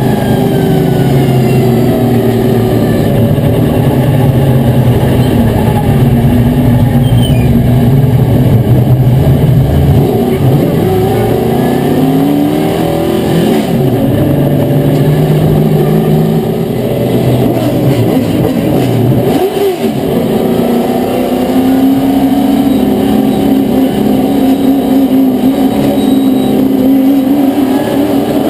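Limited Late Model race car's V8 engine heard from inside the cockpit, running loud and hard, its pitch dropping and climbing back a couple of times as the throttle is lifted and reapplied.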